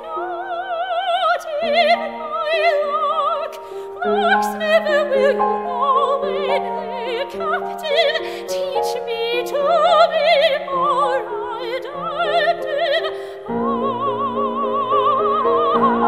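Operatic soprano singing with wide vibrato over grand piano accompaniment.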